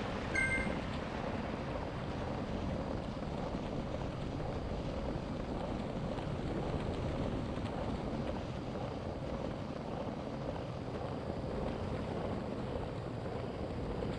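Steady wind rushing over the microphone, with a short electronic beep about half a second in.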